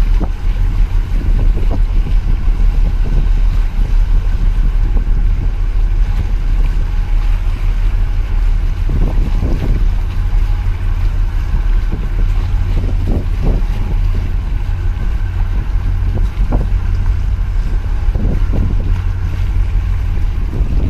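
Steady low drone of a large container ship and its escort tug passing close by, with wind on the microphone and water washing against concrete breakwater blocks.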